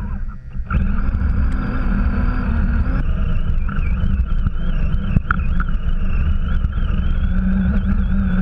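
Axial RC truck's electric motor and drivetrain whining as it drives through deep snow, the whine rising and falling with the throttle over a low rumble of chassis vibration and tyres churning snow. The motor eases off briefly just after the start, then picks up again.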